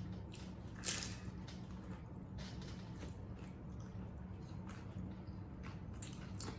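Close-up eating sounds: corn tostadas with Rotel dip being bitten and chewed, wet mouth noises coming in short bursts, with the loudest bite about a second in. A steady low hum lies underneath.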